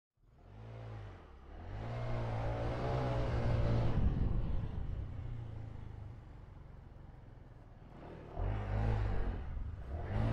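Scooter's single-cylinder engine and CVT drive pulling away on a test ride with a reworked REVENO 1.5 clutch. The engine speeds up and holds for a couple of seconds, eases back, then speeds up again near the end.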